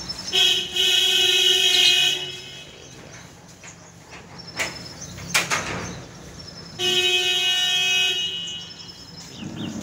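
A vehicle horn honking twice: two long, steady blasts of about two seconds each, some five seconds apart. Two sharp clicks come between them.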